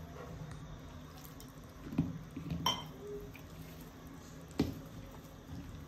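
Hand mixing damp chickpea-flour and rice-flour batter in a steel bowl: soft wet squishing, with three knocks against the steel bowl, the second of them ringing briefly.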